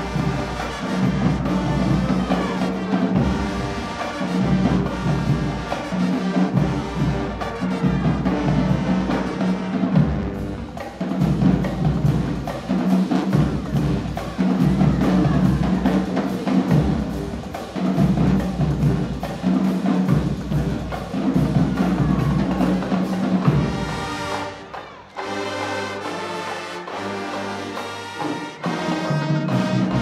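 High school marching band playing: brass and sousaphones over a drumline, driven by a strong repeated low beat. Near the end the beat drops away and the horns hold long chords, then the full band picks up again.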